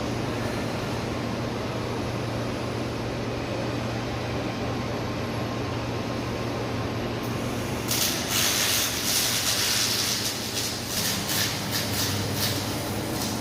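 Steady low hum of the robotic welding cell's machinery; about eight seconds in, a robotic MIG welding arc strikes and runs for about five seconds with an uneven hissing crackle, then stops.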